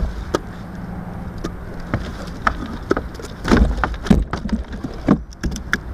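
Wind rumbling on the microphone, with scattered light clicks and a few louder knocks about halfway through as gear is handled in a plastic kayak. A faint steady hum runs under the first half.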